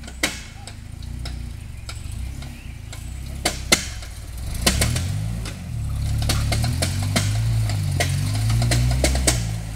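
Lifted Toyota 4Runner's engine revving up and down at crawling speed as the truck climbs over dirt mounds, louder from about halfway through. Repeated sharp clicks and clunks from the truck come over the engine.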